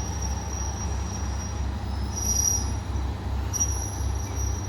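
Diesel railcar engine rumbling low and pulsing about twice a second as the one-car train stands or creeps at the platform. A thin high steady tone runs over it and drops out for about two seconds in the middle.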